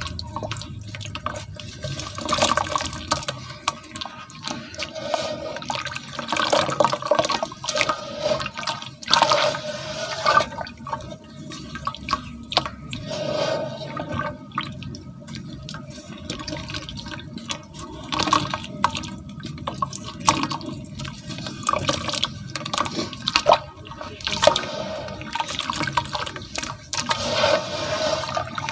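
Hands squeezing and rubbing a lump of soft, wet cement in a basin of water: irregular sloshing, splashing and dripping as the cement crumbles into the water.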